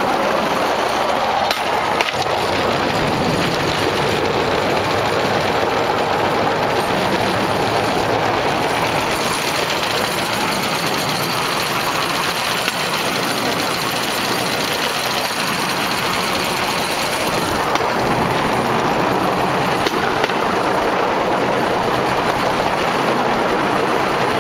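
Bamboo train (norry) running along the rails: its small motor and the wheels make a steady, loud rattling din, with an occasional sharp clack from the wheels striking the track, the clearest twice about two seconds in.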